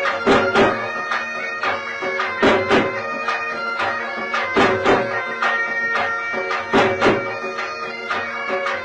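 Bagpipes playing a traditional tune over a steady drone, with a drum beating along.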